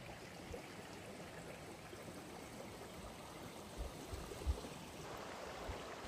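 Fast glacial river flowing, a steady soft rush of water, with a few low thumps about four seconds in.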